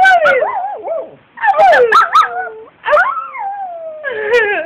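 Brussels Griffon howling: four loud, high-pitched howls, each starting with a sharp yelp and then sliding down in pitch, with short pauses between them.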